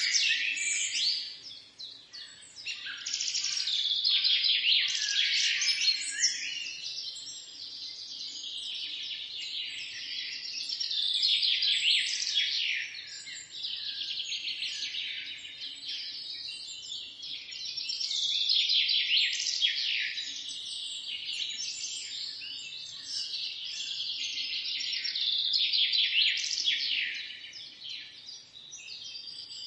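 A dense chorus of many small birds chirping, high-pitched and continuous, swelling louder and fading back every several seconds.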